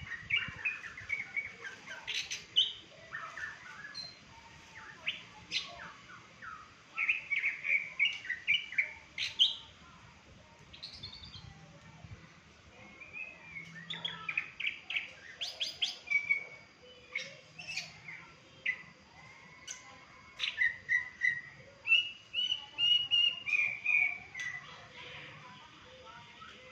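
Songbird singing in repeated bursts of quick chirps and short trills, with brief pauses between phrases.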